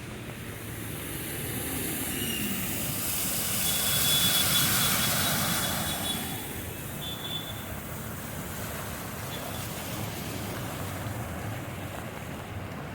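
A vehicle passing close by through floodwater, its tyres hissing through the water. The sound builds to a peak about four seconds in, then fades to a steady background rush.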